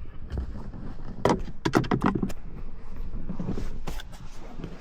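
Hard plastic clicks and knocks from the center console lid and trim being worked loose by hand. There is a cluster of sharp clicks about a second and a half in, then a short stretch of scraping.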